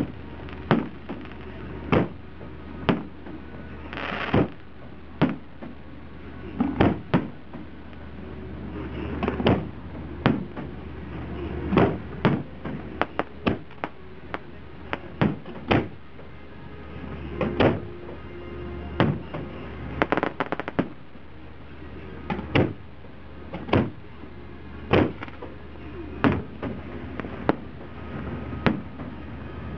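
Aerial fireworks shells bursting in a steady series of sharp booms, about one a second, with quicker runs of several bangs close together in the middle. Music plays underneath.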